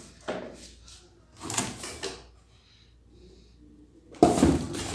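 Hard plastic pressure-washer parts being handled and pushed together: a short knock, then sliding, scraping sounds about one and a half seconds in and again, louder, near the end.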